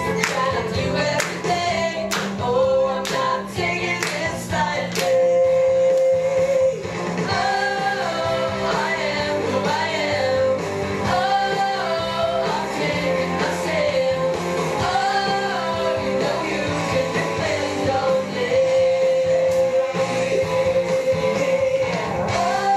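A song: singing over instrumental accompaniment, with sharp percussive hits repeating through the first few seconds.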